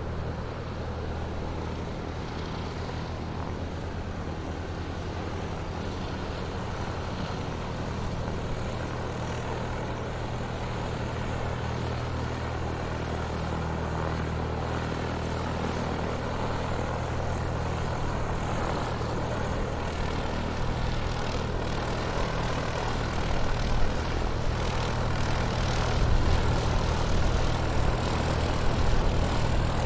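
Airplane taxiing on the ground: its engine runs steadily at low power, a continuous low drone that slowly grows louder, turning a little uneven in the last third.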